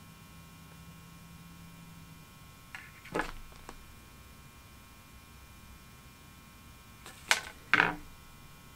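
Scissors snipping strands of red crystal flash: a sharp snip about three seconds in and two more close together near the end, over a steady electrical hum.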